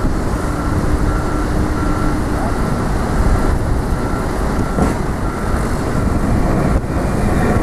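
Heavy machinery's reversing alarm beeping steadily, about two beeps a second, over a constant low rumble.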